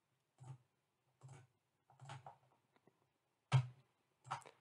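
Computer mouse button clicking about five times, roughly once every second, while points are placed on an on-screen drawing; the last two clicks are louder.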